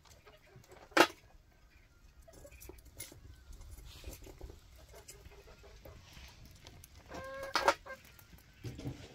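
Chicken clucking, with one short pitched call near the end, and a sharp knock about a second in.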